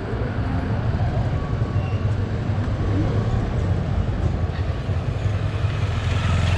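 A vehicle's engine running with a steady low rumble, with an even rushing noise over it.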